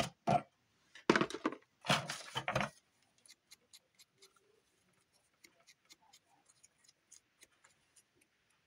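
Craft materials being handled on a tabletop: three short, loud bursts of handling noise in the first three seconds, then light scattered clicks and taps.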